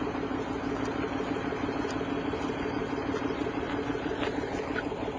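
Mi-8 helicopter's twin turbines running on the ground, a steady drone with a fast flutter from the turning rotor.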